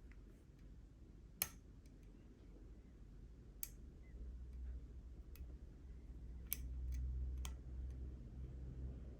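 Faint, sparse clicks of a hook pick working the pin stack of a Schlage Everest lock cylinder under a tension wrench, about five clicks spread a second or two apart, over a steady low hum.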